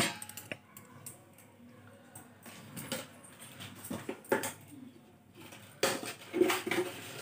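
Kitchen handling sounds: scattered light clicks and knocks of a plastic jar and utensils being picked up and opened, with a louder cluster of knocks near the end.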